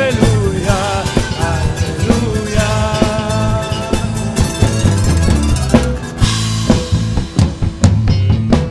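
Live Andean Christian folk band playing: the singer's last line trails off near the start, then an instrumental passage with drum kit, bass and guitars, the drum strikes growing more prominent toward the end.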